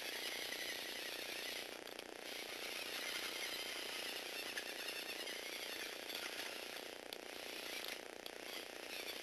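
Small electric motor driving a Lego Technic robot's plastic gear train: a steady whirring rattle of meshing gears as the four-wheeled robot drives and turns, dipping briefly a few times.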